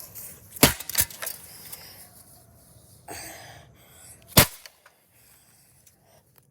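Sledgehammer blows on a Harbor Breeze Builders Best ceiling fan. Two sharp cracks come less than half a second apart under a second in, then a lighter knock, then another hard strike about four and a half seconds in.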